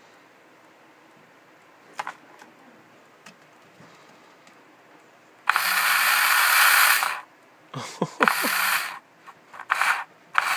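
Traxxas Velineon VXL-3s ESC and motor on a 3S LiPo, the ESC melting down: a single click about two seconds in, then from about halfway through several loud bursts of harsh noise, the first and longest lasting over a second and a half.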